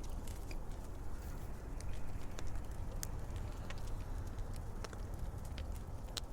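Fire crackling: irregular sharp snaps and pops over a steady low rumble.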